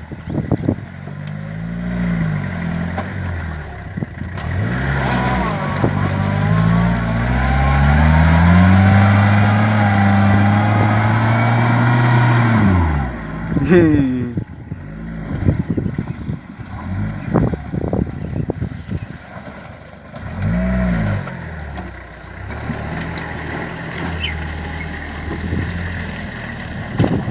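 Toyota Hilux pickup's engine revving up and down as it is driven off-road, with one long hard pull of several seconds that drops off suddenly, then shorter blips. Knocks and clatters from the truck come through between the revs.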